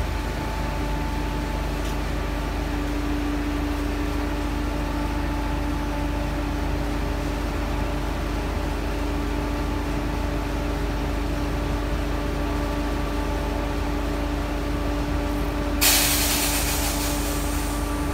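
Heavy machinery engines of the coiled tubing rig running with a steady hum and a held tone. About 16 seconds in, a sudden loud hiss of released compressed air starts sharply and fades over about two seconds.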